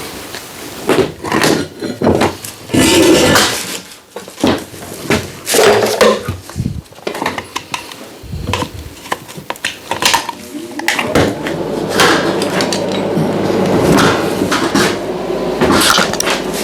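Metal parts and tools clanking and knocking irregularly during metalwork, then a steady machine hum starting about two-thirds of the way in.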